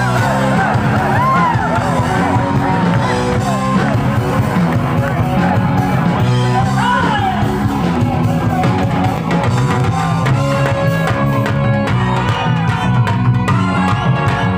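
A live band playing loud pop music through a PA system, with drums and bass guitar under a woman's singing, heard from the middle of a concert crowd that yells along.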